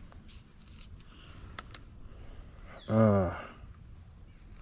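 Steady high-pitched chorus of crickets or other insects, with a couple of sharp clicks about a second and a half in. About three seconds in comes a man's short wordless vocal sound, falling in pitch.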